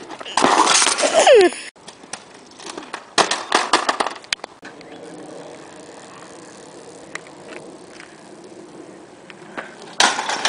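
Kick scooter wheels rattling on asphalt, then a run of sharp clatters. A quieter stretch of bike tyres rolling on the road follows, and a loud crash near the end as a BMX bike rides into a pile of cardboard boxes and trash.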